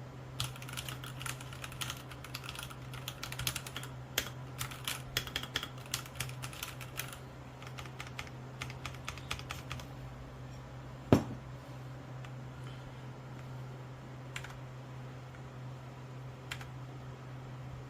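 Typing on a Royal Kludge RK R87 mechanical keyboard: a quick run of keystrokes that thins out after about seven seconds. It is followed by one loud knock near the middle and then two lone key presses, over a steady low hum.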